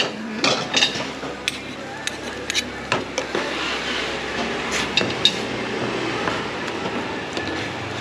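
Metal ladle clinking and scraping against an aluminium saucepan as chili paste is stirred into tom yum soup: a run of irregular knocks, with a cluster of them about five seconds in.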